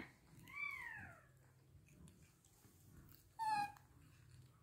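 Baby macaque giving two clear, high calls. The first, about half a second in, rises briefly and then slides down in pitch. The second is shorter and louder, about three and a half seconds in.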